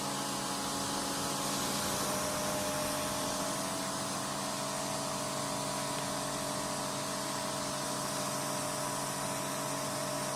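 Pressure washer running steadily, the hum of its motor and pump under the hiss of the high-pressure water jet cleaning dirty patio slabs.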